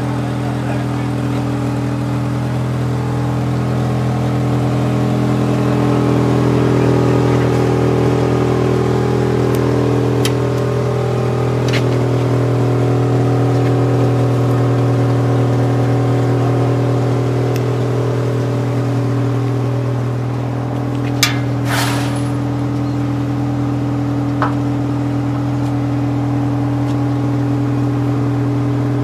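A vehicle engine running steadily at an even speed. Two or three sharp metallic clicks or knocks come about two-thirds of the way through.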